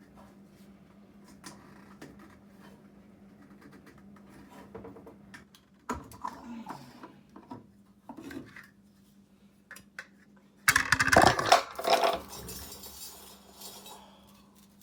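Metal parts and tools clanking and rattling on a workbench, with a loud clattering burst a little over ten seconds in, over a steady low hum.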